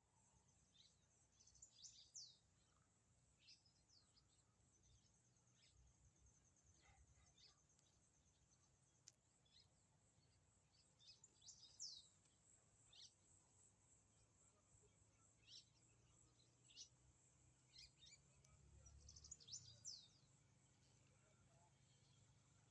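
Faint bird chirps: short, high calls that sweep downward, singly or in quick clusters every second or two, over a low steady hum.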